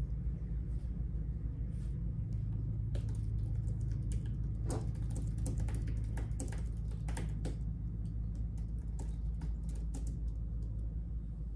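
Computer keyboard typing: irregular keystroke clicks, sparse at first and coming quicker from about three seconds in, over a steady low hum.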